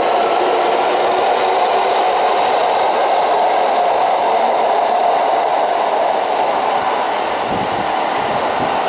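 Electric commuter train pulling out of an underground station platform, its steady running noise echoing in the station, with a faint whine of the traction motors rising in pitch as it gathers speed. The sound eases slightly as the last car enters the tunnel, with a few low thumps near the end.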